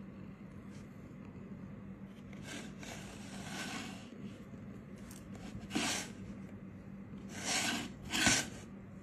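A cat rummaging for food in a plastic measuring jug, pawing and nosing inside it: a few short scraping, breathy noises, the two loudest near the end.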